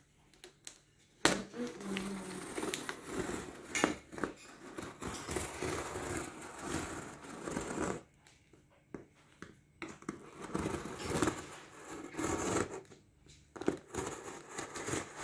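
Plastic stretch wrap on a cardboard TV box being slit with a box cutter and pulled away, crinkling and tearing with a few sharp clicks. It starts about a second in, pauses briefly past the middle, then resumes.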